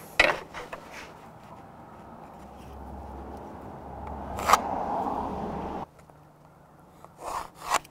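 Pencil scratching lines across an MDF board along a plastic speed square, with taps and knocks of the square being set down and moved: one sharp click about halfway through and a few knocks near the end. A low rumble runs underneath and cuts off suddenly about three-quarters of the way in.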